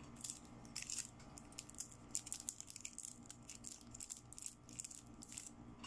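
Close-up handling of small plastic toy makeup pieces: an irregular run of light clicks, taps and short scrapes as a makeup brush with a glitter-filled plastic handle is picked up from the set.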